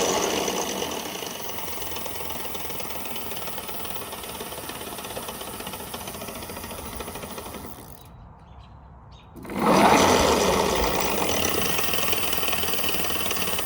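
E-bike geared hub motor spinning up under power with a harsh, rattling grind from its planetary gear clutch, which has a broken tooth. It runs, winds down and stops about eight seconds in, then spins up again about a second and a half later.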